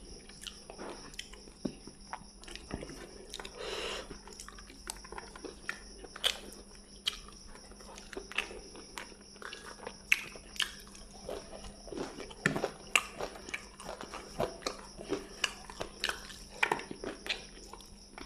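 A person chewing fried fish and rice eaten by hand, with irregular smacking clicks from the mouth.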